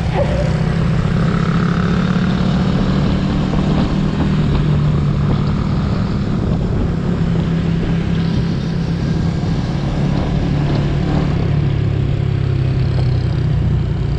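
Motorcycle engine running hard at a steady, sustained speed, its pitch holding nearly level, with wind and road noise over it.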